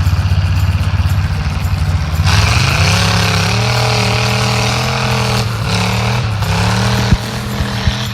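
Big mud truck engine running loud and throbbing, then revving up about two seconds in, with a strong hiss joining and holding at the higher pitch.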